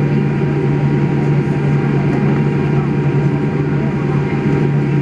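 Steady cabin noise of a Boeing 787 Dreamliner taxiing, heard from inside the cabin: the engines at taxi power and the cabin air make an even rushing noise over a steady low hum.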